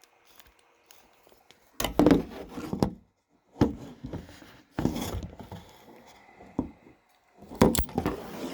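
Metal hand tools, vise grips and pliers, clinking and clattering in several short bursts as they are handled and clamped onto the fuel pipe fitting.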